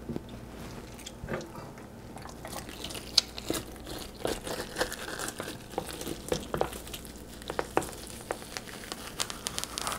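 Burbot skin being peeled off the raw flesh, gripped with needle-nose pliers and pulled by hand: a run of small, irregular crackles and clicks as the skin tears away.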